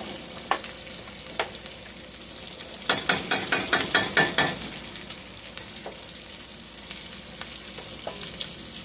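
Seasoned T-bone steak frying in a pan, a steady sizzle. About three seconds in comes a quick run of about eight sharp clicks.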